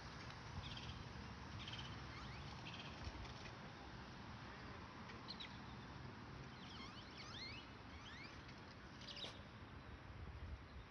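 Faint, high bird chirps and short sweeping calls, scattered in small bunches with a cluster near the middle and another near the end, over a steady low background noise.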